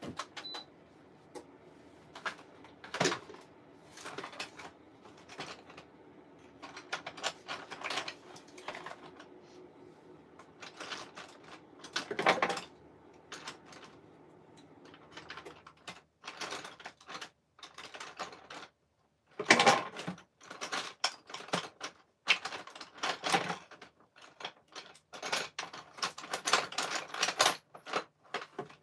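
Coloured pencils clattering and rattling as they are rummaged through and picked up, a run of irregular clicks and knocks that grows busier in the second half.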